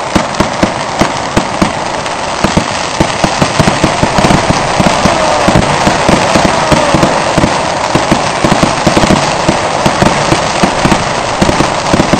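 Fireworks going off in a rapid, unbroken run of bangs and pops, several a second, over a continuous crackling haze.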